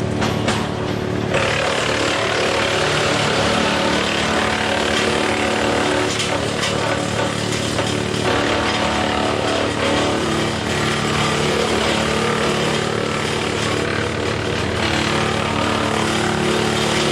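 Woodmaxx WM8 PTO wood chipper driven by a John Deere 4066R diesel tractor, running steadily. From about a second in, a harsh grinding noise rises and falls as branches are fed through the chipper's feed roller and chipped.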